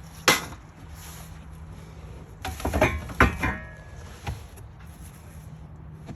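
Knocks and clatter of metal sawmill parts being handled and set down during unpacking, a sharp knock near the start, a cluster in the middle with one brief metallic ring, and a last knock a little later.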